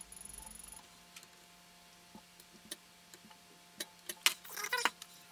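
Scattered light clicks and taps from desoldering work on a circuit board, then a cluster of louder crackling and rustling about four seconds in, with hair brushing against the camera's microphone. A faint steady electrical hum runs underneath.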